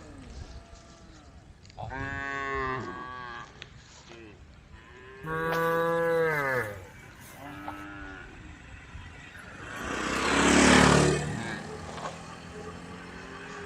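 Cows mooing: three drawn-out calls that fall in pitch, a short one, then a louder, harsher moo about ten seconds in.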